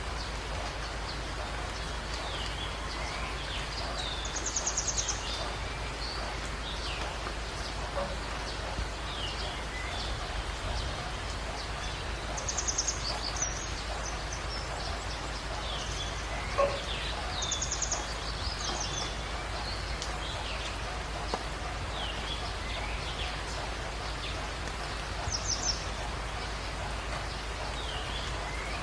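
Birds calling over a steady hiss of background ambience. One bird repeats a short, fast, high trill about every four to five seconds, while others give short falling chirps.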